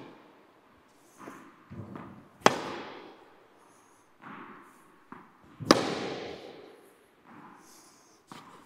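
Tennis balls struck by a racket on topspin backhands: two sharp hits about three seconds apart, each ringing on in the echo of an indoor tennis hall, with softer ball bounces between.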